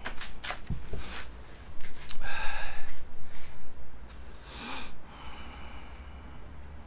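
Clicks and rustling as a man settles into a chair, then two loud breathy sounds from his nose and throat, about two seconds in and again near five seconds.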